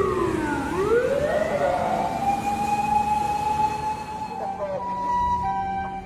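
Japanese fire-engine wail siren gliding down in pitch, then winding back up and holding a high steady note. Near the end a two-tone siren starts, alternating between a higher and a lower note in the hi-lo pattern of a Japanese ambulance.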